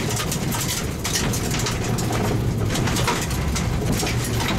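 Kia cee'd rally car's engine running hard at speed, heard from inside the cabin, with steady road noise and frequent short knocks from the road surface.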